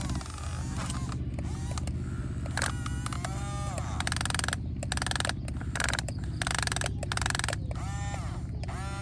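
Remote-control excavator running: a steady low mechanical hum, with short whines rising and falling over it again and again.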